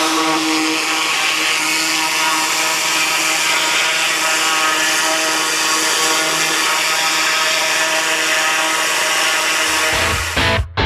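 Hot-water pressure washer running, its wand blasting a steaming high-pressure spray onto steel excavator tracks: a steady hiss over the steady hum of the machine. It cuts off abruptly near the end.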